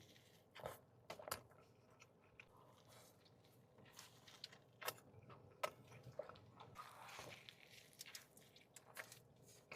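Faint eating sounds: a person biting and chewing a burrito, with scattered soft mouth clicks and crunches.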